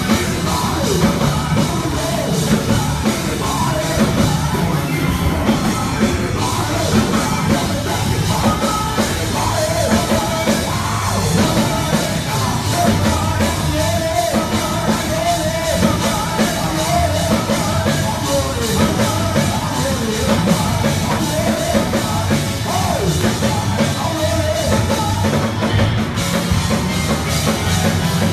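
A live church band with drums and keyboards playing loud, driving gospel praise music, with a man's voice singing and shouting over it through the PA.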